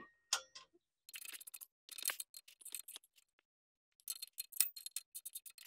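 Light metallic clicks and scrapes in short scattered runs as a black chrome Toyota Tundra exhaust tip and its clamp are handled and worked into position on the tailpipe.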